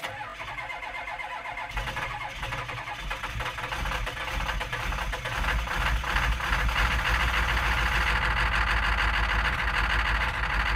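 A car engine running, with a pulsing low rumble, growing louder about five seconds in and then holding steady.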